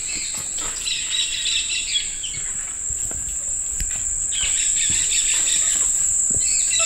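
Amazon rainforest insects drone steadily on one high note, with bursts of chirping calls coming in twice and again near the end.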